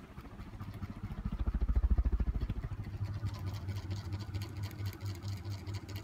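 Zhonglian mini ceiling fan running in reverse with its blades mounted upside down. Its air wash and motor give a low, rapid, even throb that swells about two seconds in as the microphone nears the blades, then holds steady.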